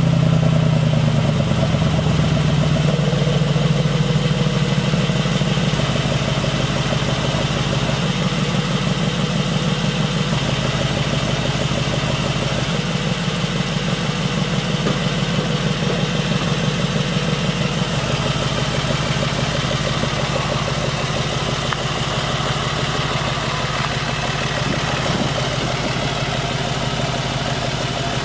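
Mercedes-AMG G63's twin-turbo V8 idling steadily through a Fi EXHAUST Ultra Edition valvetronic cat-back with side-exit tips. The idle eases a little lower over the first few seconds, then holds even.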